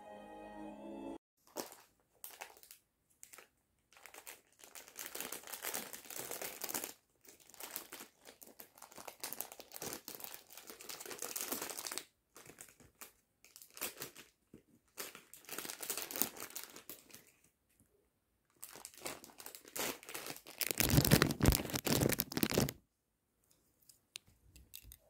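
Plastic snack bag crinkling in irregular bursts as a hand rummages in it and pulls out snacks. Near the end comes a louder, fuller rustling and rubbing of a knit sleeve brushing right against the microphone.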